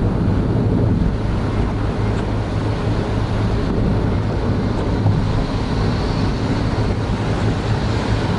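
Steady in-cabin road noise of a Honda N-BOX Custom kei car cruising on a wet expressway: tyre hiss on the wet road over the low, even hum of its 660 cc turbo three-cylinder engine.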